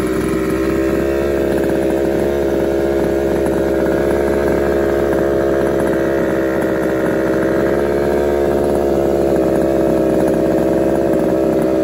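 Small two-stroke engine of a large-scale RC car idling steadily, a constant drone with no revving.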